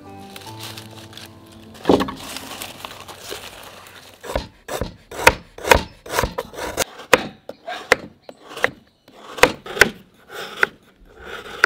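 Dry leaf wrapping crackling and rustling as it is cut open, then a knife chopping and shaving a block of jaggery on a wooden board in a dozen or so sharp, uneven strokes.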